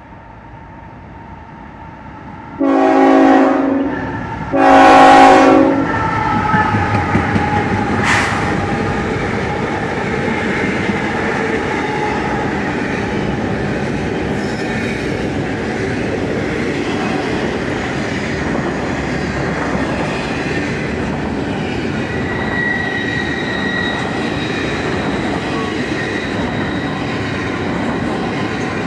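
Diesel freight train horn giving two long blasts as the four-locomotive CSX intermodal train approaches. The locomotives then pass and a long string of double-stack container cars rolls by with a steady rumble of wheels on rail.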